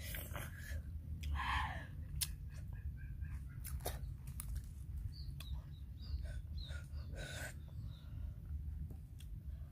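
Light clicks and rustling as coconut-shell bowls and food are handled on a banana leaf, with short bird chirps about halfway through, over a steady low rumble.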